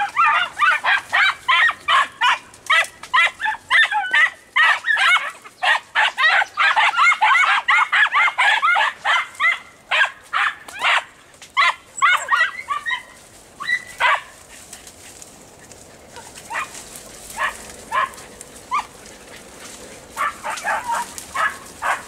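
A pack of Andalusian podencos (Podenco Andaluz hounds) gives tongue in rapid, high-pitched yelps while chasing a rabbit through thick cover. The yelping is dense for about the first half, then thins to scattered yelps.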